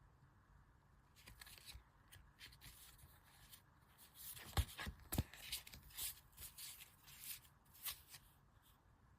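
Hands handling merchandise and its packaging: scattered rustling and light clicks, getting busier about four seconds in, with two sharper taps around then.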